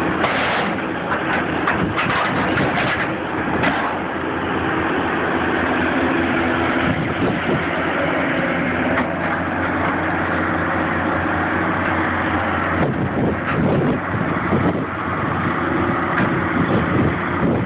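Excavator's diesel engine running steadily, its note changing about two thirds of the way through, with a few short knocks over it.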